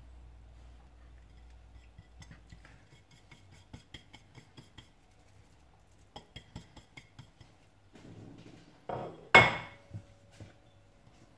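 Light taps and clicks of fingers on a plate as lemon zest is knocked off it, then a loud clatter about nine seconds in as the plate is set down, ringing briefly.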